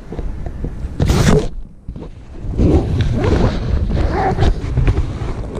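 Handling noise on the camera's microphone: cloth rubbing and rustling against it as the camera is covered or stowed, with a loud scraping rub about a second in.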